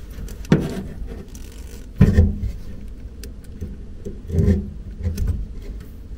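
Wire strippers being worked on the ends of a cable: a few short clicks and scrapes of the tool and wire, about half a second, two seconds and four and a half seconds in, over a low steady hum.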